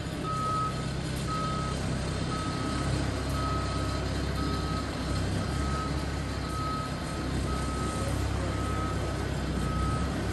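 A vehicle's reversing alarm beeps steadily about once a second, each beep about half a second long, over the low, steady running of an engine. This is a boat transporter backing up while moving a yacht.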